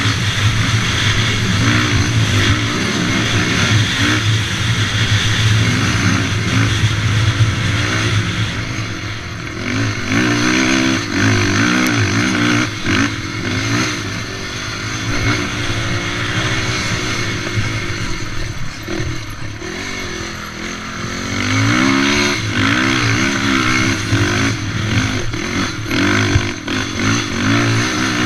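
Racing quad's engine, heard from on board, revving up and easing off again and again as it is ridden hard around a dirt track. The throttle backs off briefly about ten seconds in and again around twenty seconds in.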